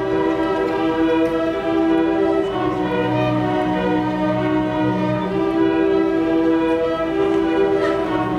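String orchestra of violins, violas, cellos and double bass playing long, sustained bowed notes that change every second or two. The low bass part drops out at the start and comes back in about two and a half seconds in.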